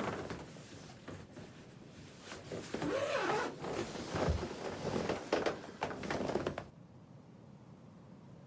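Quick scraping, rasping handling noises in several short strokes, with one low thump midway; they stop abruptly after about seven seconds.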